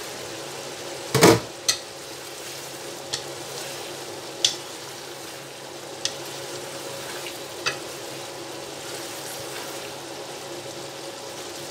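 Keema and cauliflower sizzling and bubbling in a pan, still wet with the water added to soften the cauliflower, stirred with a wooden spatula that ticks against the pan now and then. There is a loud knock about a second in, and a steady hum underneath.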